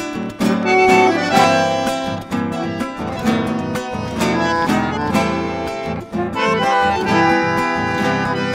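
A chamamé played on accordion with guitar accompaniment: the accordion carries the melody in sustained notes over plucked guitar chords.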